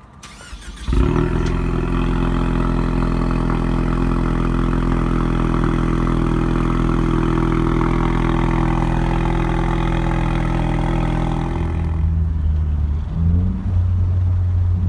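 2019 Ford Mustang EcoBoost's 2.3-litre turbocharged four-cylinder, through its active exhaust, starting up and catching about a second in. It then holds a steady high idle and drops to a lower, deeper idle about twelve seconds in.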